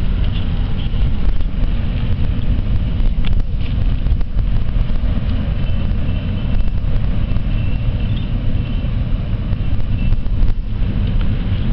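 Wind buffeting the microphone over the low rumble of the ferry MV Clansman's engines as she manoeuvres stern-first onto her berth.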